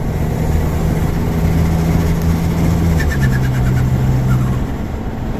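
Turbocharged engine of a tuned 2013 Audi A4 (B8.5) running with a steady drone that drops in pitch about three seconds in, with a brief rapid chatter of turbo flutter at that moment.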